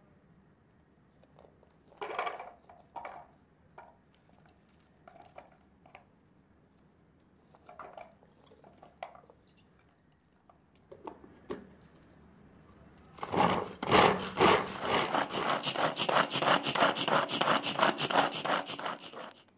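Garlic cloves, onion pieces and green chillies dropping and clattering into a plastic hand chopper bowl. About two-thirds of the way in, the chopper is worked hard in rapid repeated strokes, its blades whirring and chopping the contents fine. This chopping is the loudest sound and stops abruptly.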